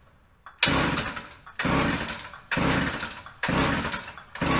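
Homelite Super XL Automatic two-stroke chainsaw being pull-started with the throttle held open: five hard pulls of the recoil starter, about one a second, the engine cranking over each time without catching.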